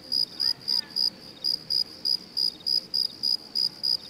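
Cricket-chirp sound effect: an even run of short high chirps, about four a second, starting abruptly. It is the stock awkward-silence cue after a joke falls flat.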